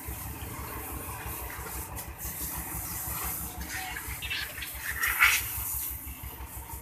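Water from a garden hose hissing and splashing against a motorcycle and a rickshaw tyre, the spray growing louder in bursts a few seconds in, over a low throbbing rumble.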